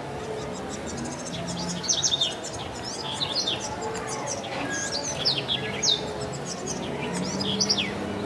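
Many small birds chirping at once, a dense stream of short, quickly falling chirps overlapping one another, with a few louder calls about two and six seconds in. A faint low steady hum sits underneath.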